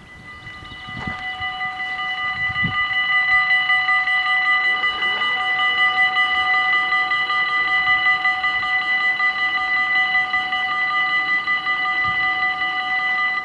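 Level-crossing warning bells ringing steadily, several electric bells together, signalling that a train is approaching. The ringing grows louder over the first few seconds, then holds at full level.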